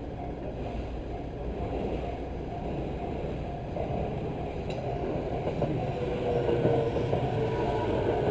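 Japanese level crossing bell ringing in an even repeating pattern while an electric train approaches, its running noise growing steadily louder. From about six seconds in, a tone from the train slowly falls in pitch.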